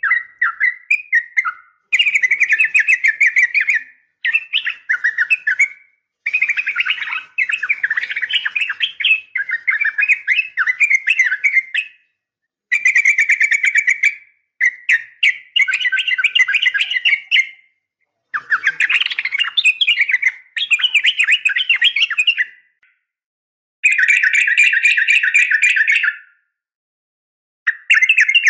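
Sooty-headed bulbul (trucukan) chattering calls, repeated in bursts of fast phrases a couple of seconds long with short silent breaks between them. The recording is presented as a female calling a male, used as a lure to set caged males singing.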